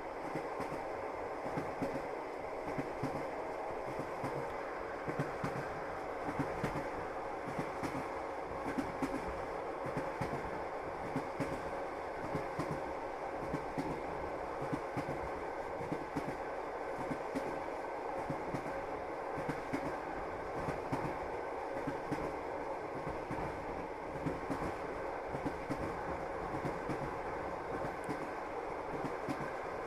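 A moving passenger train running along the track, its wheels knocking over the rail joints. A steady rumble is broken by many short, sharp clacks.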